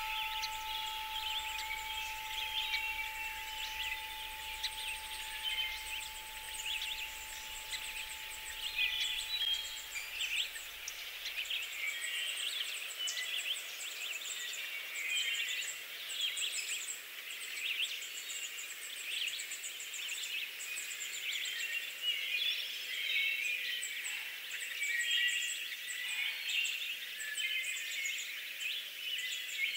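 A dense chorus of many small birds chirping and twittering without a break. A faint steady tone and a low hum under it fade out about a third of the way in.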